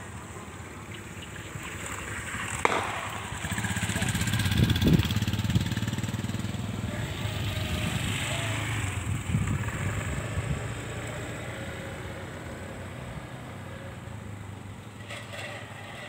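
Small motor scooter riding past, its engine growing louder over the first few seconds and fading away over the last few. A single sharp click is heard shortly before it comes closest.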